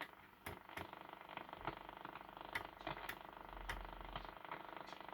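Shortwave static from a Cossor CR4212A valve radio's loudspeaker as it is tuned across the band: a low hiss with irregular crackles and clicks of electrical interference.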